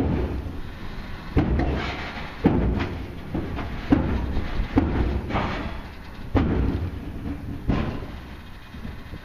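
Railroad turntable slowing toward a stop: a low rumble broken by a series of clunks about once a second, fading toward the end.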